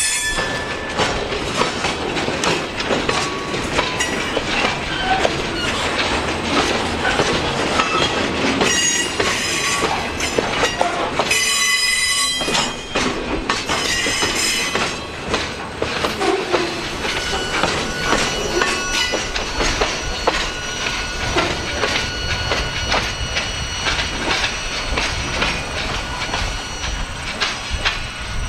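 Freight cars loaded with logs rolling past close by, their wheels clattering over the rail joints in a steady stream of clacks. High metallic wheel squeal cuts in a few times, loudest about twelve seconds in.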